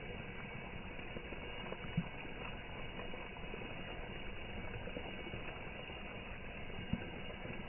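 Water at a rolling boil: a steady bubbling hiss, with two short louder knocks, about two seconds in and near the end.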